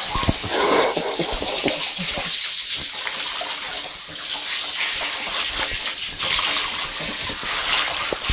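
Water spraying from a handheld shower head onto a Yorkshire terrier puppy and splashing in an enamel bathtub: a steady hiss of running water, with a few knocks and splashes in the first couple of seconds.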